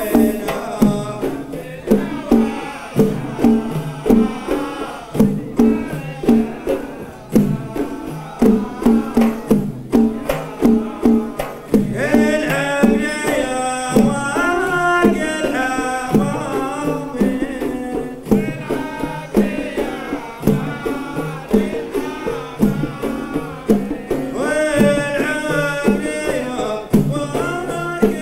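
Gulf folk song performed live by a male troupe: hand-held frame drums beat a steady rhythm under group singing. The singing swells about twelve seconds in and again near the end.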